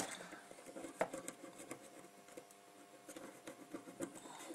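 Acetone-dipped cotton swab scrubbing a Webasto Thermo Top C heater control circuit board: faint scratchy rubbing with a sharp click right at the start and another about a second in, over a faint steady hum.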